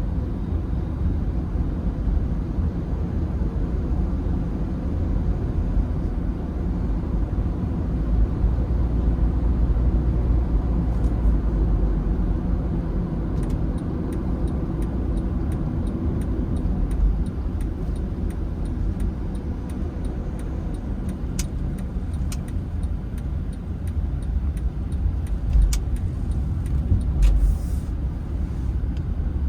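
Steady low rumble of a car driving, with a few faint clicks in the second half.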